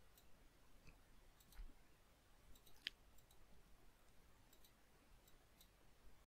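Faint computer mouse clicks over near-silent room tone, one a little louder about three seconds in. The sound drops to dead silence just before the end.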